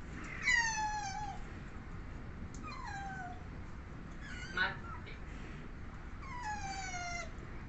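Asian small-clawed otters calling: three high, squeaky calls, each sliding down in pitch and lasting under a second, with a short sharp squeak about halfway through.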